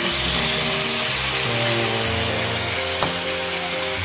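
Eel fillets sizzling and bubbling in a pan of soy-sauce glaze as it reduces, under background music of sustained notes. There is a light click about three seconds in.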